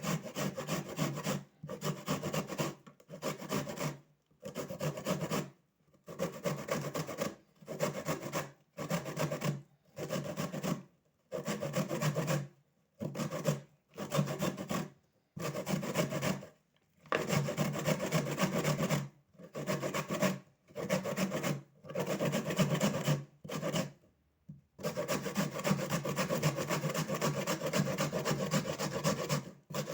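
A turnip being grated by hand on the fine side of a grater. Rapid rasping strokes come in runs of one to three seconds, with short pauses between them.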